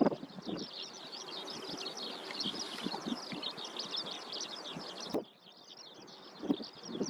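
Birds chirping densely and continuously in quick, short, high notes, with wind gusting on the microphone underneath. The sound drops sharply about five seconds in, then the chirping picks up again.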